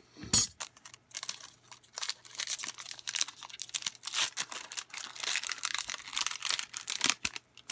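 One sharp scissors snip through the top of a foil trading-card pack about a third of a second in, then a few seconds of crinkling and tearing as the foil wrapper is pulled open by hand.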